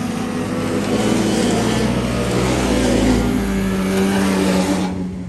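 Several race snowmobiles passing close at speed, engines running high under a hiss from their tracks in the snow. It grows louder over the first second or so and the hiss cuts off suddenly near the end.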